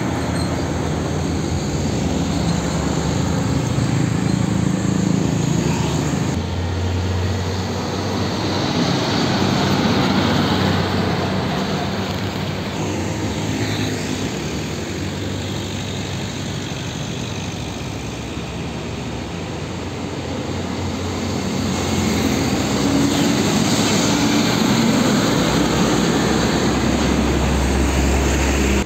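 Heavy diesel trucks and other road traffic passing close by: a steady engine drone with tyre and road noise, louder near the end as a truck goes past.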